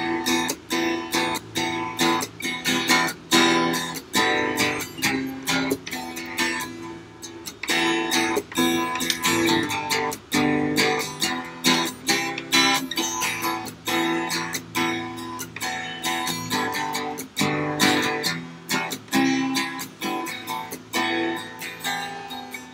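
Acoustic guitar strummed in a steady rhythm of chords, several strokes a second, with the chord notes ringing between strokes.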